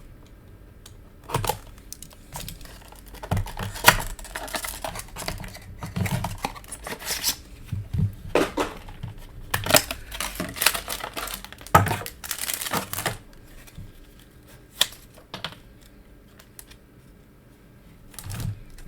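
Trading-card trial deck packaging being torn open and crinkled by hand, with the cards inside handled: irregular crackling, rustling and clicks, busiest in the first two-thirds and thinning out near the end.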